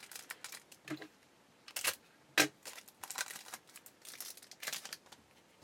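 Trading cards and their plastic packaging being handled, crinkling and rustling in short bursts, with one sharp snap about two and a half seconds in.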